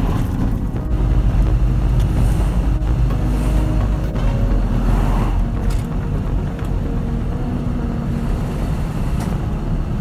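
Engine and road rumble of a moving 4-ton truck heard from inside its cab: a steady, loud low drone with passing traffic.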